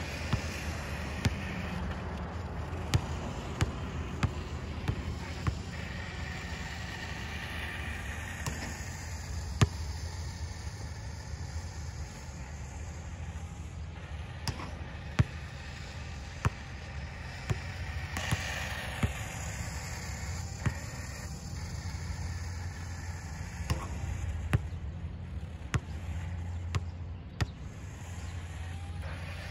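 A basketball being dribbled, shot and bouncing on an outdoor asphalt court: sharp single thuds, irregular and roughly a second apart with gaps. A steady low hum runs underneath.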